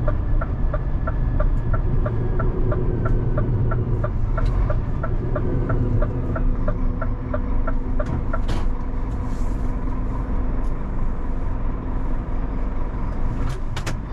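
Cab noise of a 26-tonne rigid lorry on the move: the diesel engine and road noise make a steady rumble. Over it runs a quick regular ticking, about three to four ticks a second, which stops about eight seconds in. A few sharp clicks come near the end.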